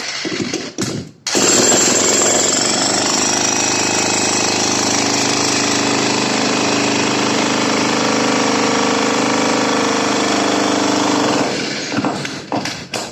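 Jackhammer running, hammering steadily for about ten seconds. It starts about a second in and stops near the end.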